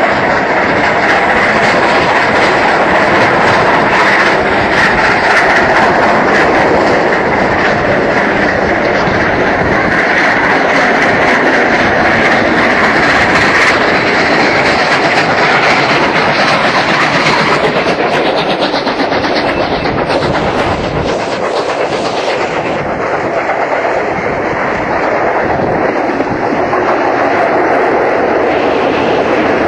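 Running noise of a moving steam-hauled passenger train heard from inside a carriage: a loud steady rush with wheels clicking rapidly over rail joints. It turns a little quieter and thinner about two-thirds of the way through.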